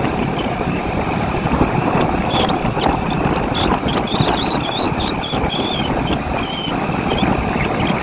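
A vehicle engine running steadily while travelling, with wind rushing over the microphone. Brief faint high chirps come and go in the middle.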